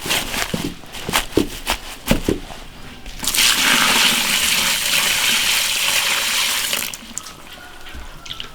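A few short knocks and clatters, then water running hard for about four seconds, stopping suddenly near the end.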